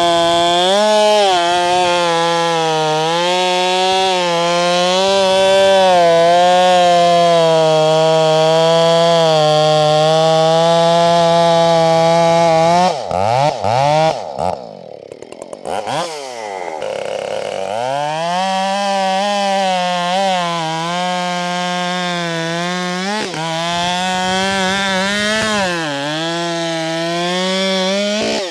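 Husqvarna 572 XP two-stroke chainsaw with a 24-inch bar running at high revs, cutting through a big pecan trunk, its pitch wavering as the chain loads up in the wood. About halfway through, the revs drop away sharply and the saw goes quieter for a few seconds, then it is throttled back up and keeps cutting.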